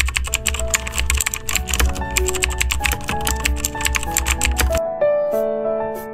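Computer-keyboard typing sound effect, rapid clicks over background music with piano-like notes. The clicks stop near the end, leaving the music on its own.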